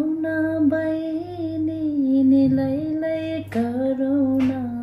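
A woman singing a Nepali folk song unaccompanied, holding long drawn-out notes in one unbroken phrase, with a short break about three and a half seconds in before the next phrase.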